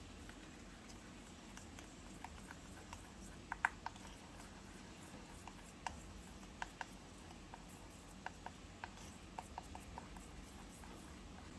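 Steel spoon stirring a flour-and-water paste in a small stainless-steel bowl: faint scraping with scattered light metallic clinks, the loudest a quick double clink about three and a half seconds in.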